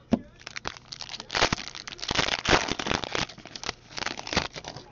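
Foil wrapper of a 2011-12 Upper Deck SP Authentic hockey card pack crinkling and tearing as it is handled and opened by hand, a sharp click at the start, then a dense run of crackling.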